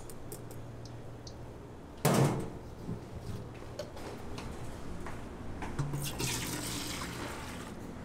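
Water splashing and running at a stainless steel sink while soaked mung beans are handled with a wire strainer, with a loud burst of splashing about two seconds in and a stretch of pouring water in the second half.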